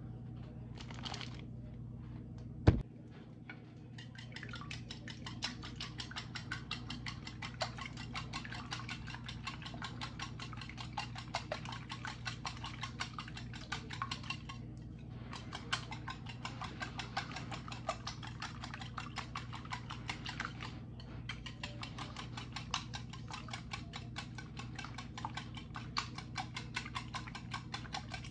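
A utensil beating rapidly against the inside of a bowl, as in whisking: fast, continuous clicking that starts about four seconds in and stops briefly twice. There is a single sharp knock about three seconds in.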